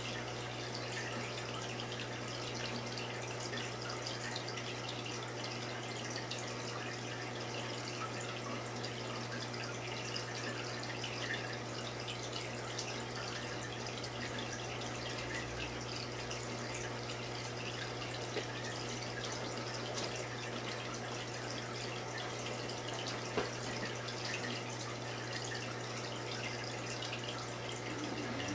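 Saltwater reef aquarium's running water: a steady trickle and splash of circulating water with occasional small drips, over a steady low hum of the tank's equipment.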